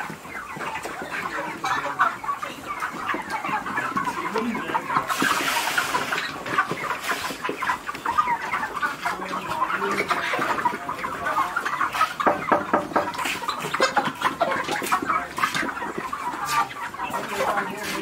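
A large flock of six-week-old chickens clucking and calling together, a dense, continuous noise of many overlapping short calls.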